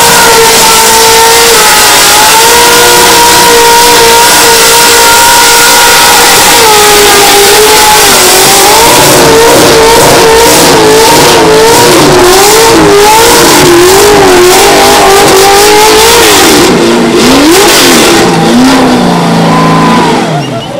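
Ford Cleveland V8 held at high revs in a burnout, rear tyres spinning in thick smoke. About seven seconds in, the revs start rising and falling rapidly. Near the end they drop away as the engine comes off the throttle.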